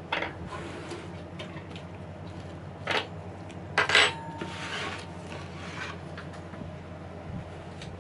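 Kitchen knife cutting through cooked sweet potato and knocking down onto a hinoki wood cutting board: a knock just after the start, another about three seconds in, and a quick double knock around four seconds, followed by a brief scrape of the blade.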